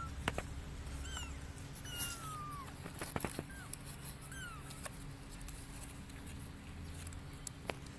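Young kittens mewing in a few short, thin, high calls, one a longer falling mew about two seconds in. There are light taps of paws and claws on a cardboard box floor, with a sharper tap near the end.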